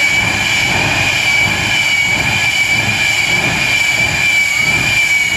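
Jet-powered semi truck's turbine engine running with a steady high whine over a low rumble.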